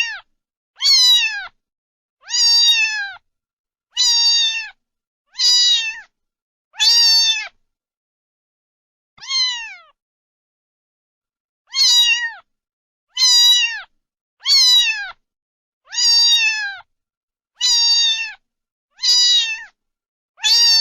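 A cat meowing over and over, about a dozen high meows that each fall in pitch at the end, spaced roughly a second and a half apart. The run pauses about a third of the way through for one softer meow, then carries on at the same pace.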